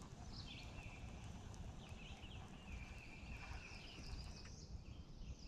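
A songbird singing faintly: phrases of short notes sweeping down, each running into a level trill, repeated several times, over a steady low rumble.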